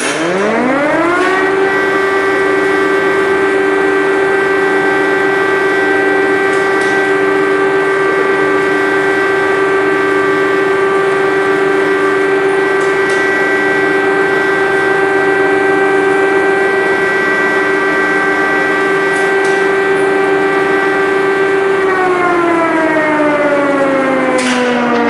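Air-raid siren sounding an alert: it winds up to a steady tone within about a second and a half, holds it, then begins to wind down in falling pitch about 22 seconds in.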